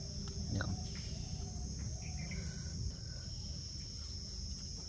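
Insects trilling in a steady, unbroken high-pitched drone, with a low rumble underneath and a few soft clicks.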